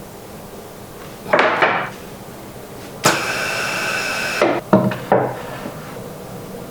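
Workshop work on wood: a couple of loud knocks, then a power tool running for about a second and a half, then three more sharp knocks.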